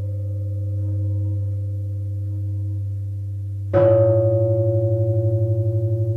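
Bronze chime bells (bianzhong) ringing. A low bell tone hums and slowly fades, then about two-thirds of the way in another bell is struck and rings out loudly, its tone wavering in a fast beat as it decays.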